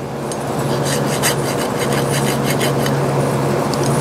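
Hand file scraping in quick short strokes across a small metal strip to take the burrs off, about three or four strokes a second; the file is getting dull. A steady low hum runs underneath.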